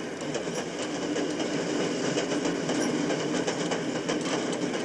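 Railway passenger carriage in motion, heard from inside: a steady running rattle of wheels on the track and the carriage body.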